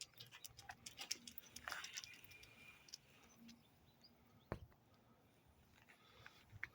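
Near silence with faint scattered clicks, thicker in the first two seconds, and one sharper click about four and a half seconds in.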